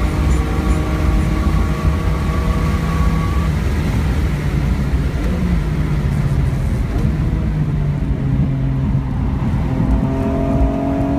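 A 2002 BMW M3's S54 straight-six engine, heard from inside the cabin, pulling hard with its pitch climbing slowly. About four seconds in the engine note drops away and falls as the car slows for a corner, then it climbs again near the end as the car accelerates out. Road and wind noise run underneath.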